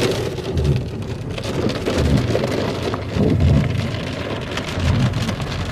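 Rain with large drops hitting the roof and windshield of a moving car, heard from inside the cabin: a dense, steady clatter of drop impacts.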